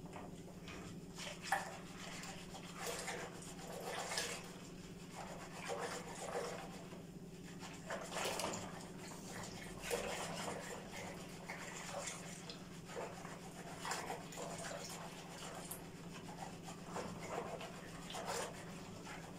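A whisk beating yogurt starter into warm milk in a bowl: repeated soft swishing and light scraping against the bowl, a stroke every second or two.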